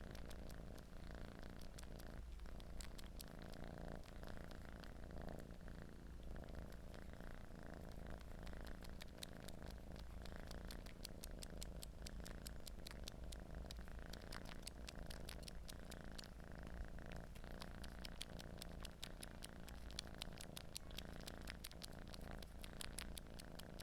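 Domestic cat purring steadily while suckling, with a rapid run of small wet sucking clicks over the purr.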